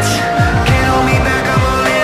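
Background music with a steady electronic beat: deep kick drums under held synth tones.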